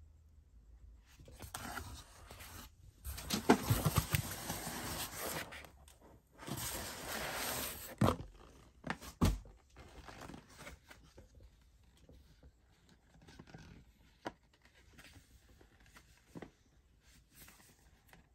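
Plastic and paper packaging crinkling and rustling as it is handled, in three loud stretches with sharp crackles over the first eight seconds. Then quieter handling noises follow, with a few light knocks.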